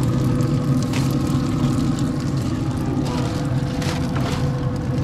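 Steady mechanical hum of a Traeger pellet grill's fan running, with aluminum foil crinkling briefly about a second in and again near the end.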